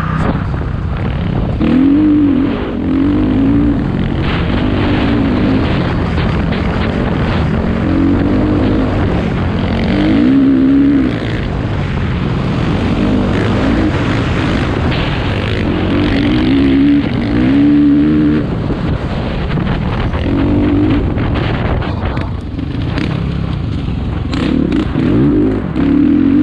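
KTM 450 dirt bike's single-cylinder four-stroke engine being ridden hard, its revs rising and falling again and again every second or few as the throttle is worked, over a steady rushing noise.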